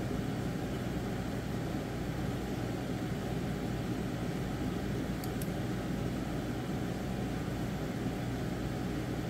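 Steady machine-like hum and hiss of background room noise, with two faint ticks about five seconds in.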